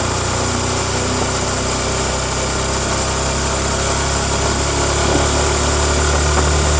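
Yamaha MT-15's stock-exhaust 155 cc single-cylinder engine running steadily on the move, with wind and road noise, getting slightly louder toward the end.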